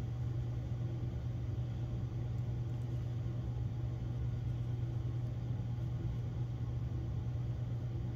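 Steady low room hum with no distinct sound standing out above it.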